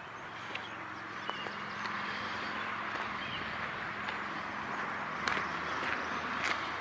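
Footsteps crunching on railway track ballast, with traffic from a nearby highway as a steady hiss that swells louder through the middle and end.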